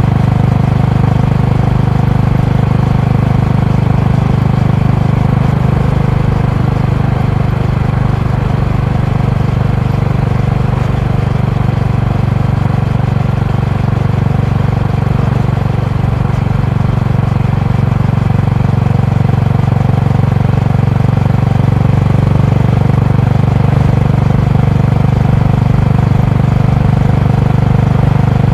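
Honda GB350's air-cooled single-cylinder engine and exhaust running while the motorcycle rides along at a steady speed. The low exhaust note holds a near-constant pitch throughout.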